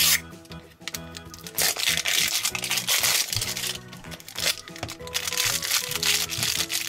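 Crinkling and tearing of the plastic wrapping on an LOL Surprise ball as its shell is opened and a plastic blind bag pulled out and handled, loudest from about a second and a half in, over background music.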